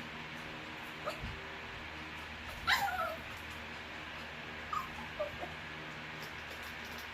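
Bichon Frisé dog whining: a few short whimpers, the loudest about three seconds in falling in pitch, with fainter ones before and after it. A steady low hum runs underneath.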